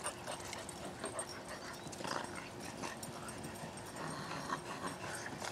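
Dogs at play, with scattered short dog vocal sounds among several dogs.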